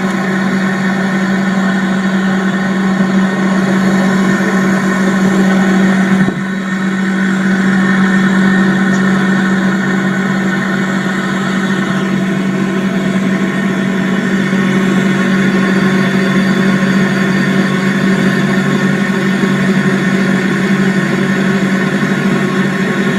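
Commercial four-door glass-door refrigerator running just after start-up: its refrigeration compressor and fans give a steady hum, with a brief dip about six seconds in.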